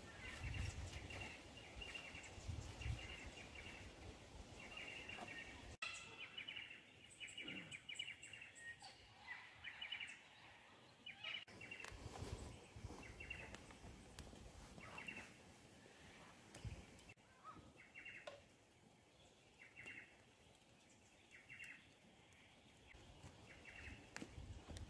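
Faint bird chirps in short phrases, repeated every second or so. A low rumble sits under them for the first few seconds.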